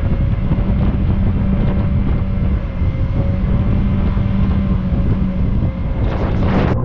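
Jet car's engine running steadily on the water under a loud rush of wind and water noise, with a brief rushing surge just before it cuts off.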